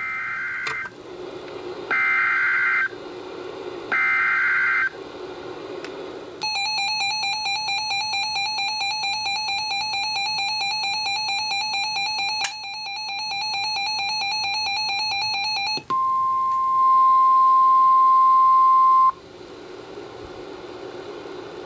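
Emergency Alert System tones on NOAA Weather Radio, heralding a severe thunderstorm warning: three short bursts of warbling SAME digital header data, then a weather alert receiver's alarm beeping rapidly for about nine seconds, then the steady 1050 Hz warning alarm tone for about three seconds, the loudest part.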